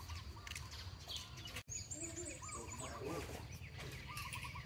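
Chickens clucking and small birds chirping in short repeated calls over a steady low rumble. The sound cuts out for an instant about one and a half seconds in.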